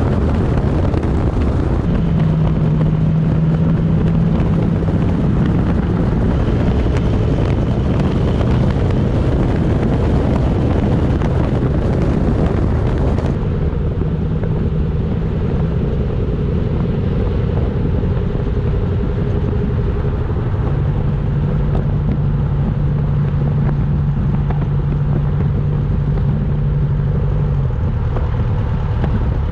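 Chevy Silverado's 5.3-litre V8 running through an MBRP cat-back exhaust while driving at a steady speed: a low, steady exhaust drone over road and wind noise. About 13 seconds in, the hiss above the drone suddenly drops away.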